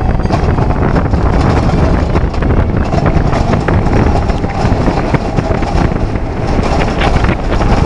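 Wind buffeting the microphone over the rumble and rattle of a steel roller coaster train at speed, heard from a seat on the train.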